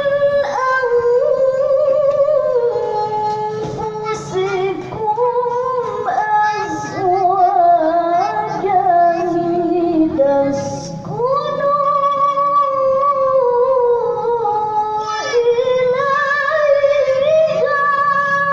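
A woman chanting Quran recitation in the melodic tilawah style, with long held notes and ornamented runs. She takes a short breath about halfway through.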